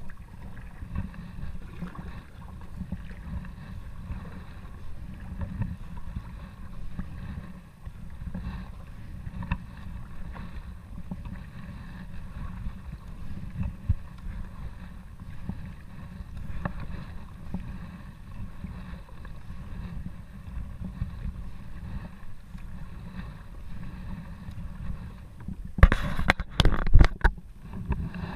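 Kayak paddle strokes dipping and pulling through calm river water, with a steady low wind rumble on the microphone. Near the end come a few loud knocks or splashes close to the microphone.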